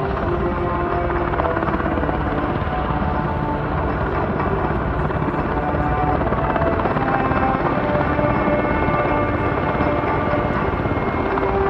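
Military UH-60 Black Hawk medevac helicopter running steadily, with continuous rotor and turbine noise and faint whining tones that shift slightly in pitch.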